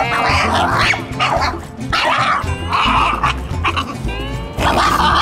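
French Bulldog puppy making a string of short, rough vocal noises and a rising whine about four seconds in while playing with a ball, over background music with a steady bass line.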